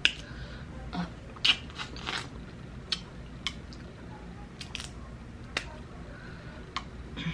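Close-miked Dungeness crab shell being cracked and picked apart by hand: about ten sharp, irregular cracks and clicks, some in quick clusters, with no steady rhythm.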